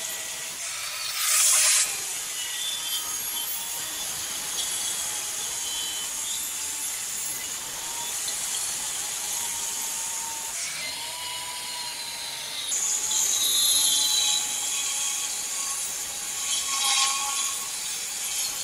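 Handheld angle grinder with a cut-off disc cutting through a 3/4-inch grade 304 stainless steel rod held in a bench vise: a steady high-pitched grinding hiss, swelling louder a few times.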